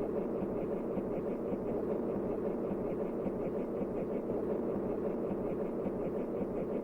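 Steady, even rumbling noise with no distinct events, like the running of a vehicle or train.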